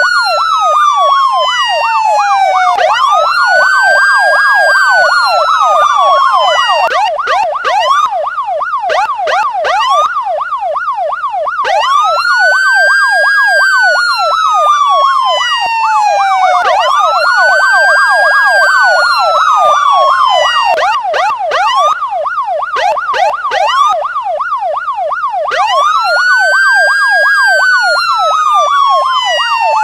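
Police siren sounding continuously: a slow wail that rises and falls over about four seconds at a time, layered with a rapid yelp sweeping up and down several times a second.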